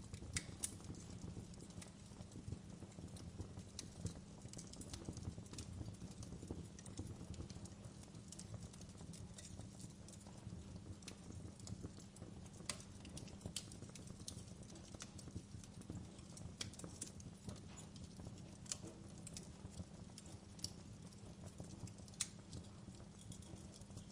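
A fire burning: a steady low rumble with irregular sharp crackles and pops.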